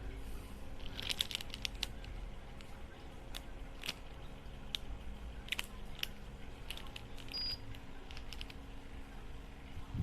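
Small portable fan's motor humming steadily, with scattered light clicks and crinkling sounds over it.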